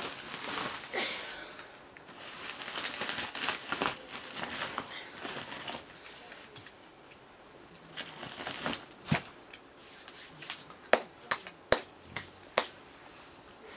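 Hands eating rice from steel plates: rustling and crinkling for the first few seconds, then quieter, with about five sharp clicks against the plates near the end.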